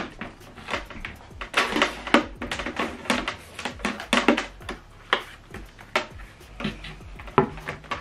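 Irregular knocks and clicks of a Samsung HW-C450 soundbar being lifted, handled and set back down on a table.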